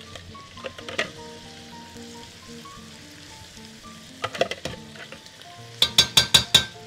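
Metal spoon stirring chopped vegetables and meat in a sizzling stainless steel pot, over soft background music. Near the end, a quick run of about six sharp metal taps as the spoon is knocked on the pot.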